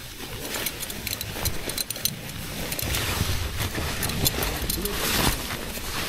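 Rustling and scuffing of trousers being pulled on over the legs while sitting on a sleeping mat, with many short crinkles and knocks and a low rumble of handling that grows louder after about three seconds.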